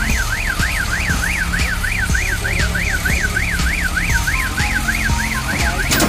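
A light cattle truck's reversing alarm: a fast warbling tone sweeping up and down about four times a second while the truck backs up to the loading ramp, its engine running underneath.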